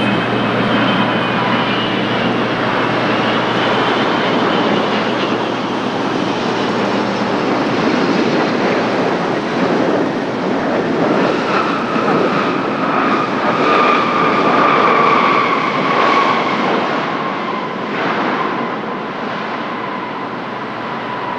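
Jet airliner engines at close range: a loud steady rush with high whining tones that slowly fall in pitch, easing off a little near the end.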